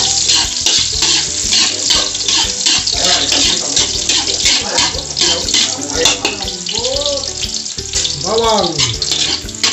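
Chopped garlic sizzling and crackling in hot oil in a steel wok: a steady hiss dotted with quick pops, stirred briefly with a spatula. Two short pitched sounds that rise and fall, like a voice, come in the second half.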